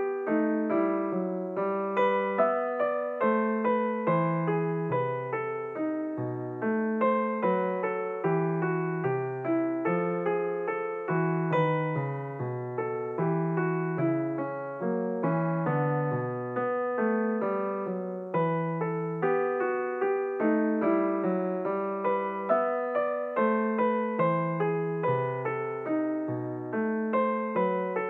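Background piano music, a steady flow of single notes and chords.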